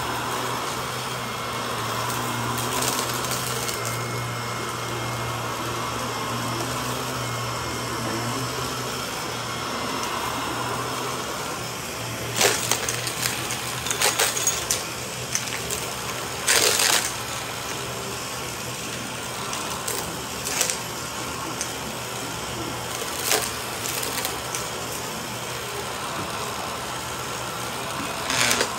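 Shark upright vacuum cleaner running steadily on a shag rug, with a low hum that fades about ten seconds in. In the second half, scattered sharp crackles of grit being sucked up break through the motor noise, about half a dozen of them.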